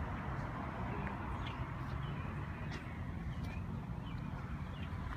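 Outdoor street ambience: a steady low rumble of traffic and air, with faint short bird chirps every so often.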